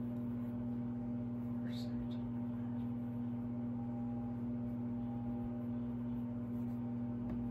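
A steady low hum with several overtones holds unchanged throughout, with faint light scratches of a pencil writing on paper about two seconds in.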